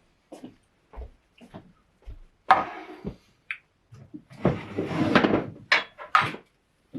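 Kitchen handling noises: a series of knocks and clicks from utensils and containers being picked up and set down, with two longer clattering, rustling stretches, the louder one about halfway through.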